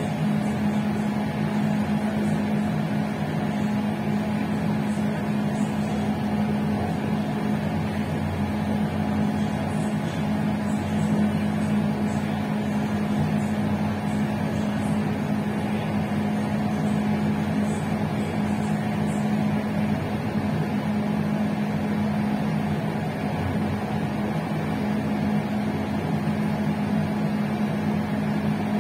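Moving passenger train running at a steady pace: a constant drone with a steady low hum and rolling noise, unchanging throughout.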